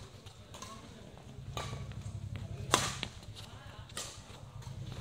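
Badminton rackets striking the shuttlecock in a rally: four sharp hits about a second apart, the third the loudest, over a steady low hum.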